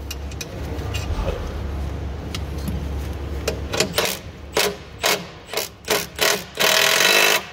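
Milwaukee cordless impact driver working a bolt on a forklift's frame bracket: a run of separate sharp clicks and knocks, then nearly a second of loud, continuous hammering near the end.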